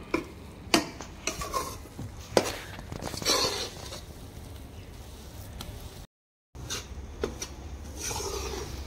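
A metal spoon scrapes around a kadhai and clinks against it as besan is stirred and roasted in ghee: sharp clinks every second or two between longer scrapes. Wind rumbles on the microphone underneath.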